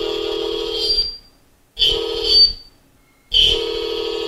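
Circuit-bent toy megaphone's speaker giving out a loud, steady buzzy electronic tone that cuts off and on abruptly: it stops about a second in, sounds again briefly around two seconds in, then comes back near the end and holds.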